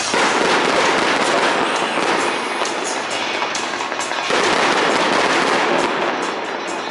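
Fireworks going off in a dense, rapid run of crackling pops, like machine-gun fire, growing louder a little over four seconds in as another volley starts.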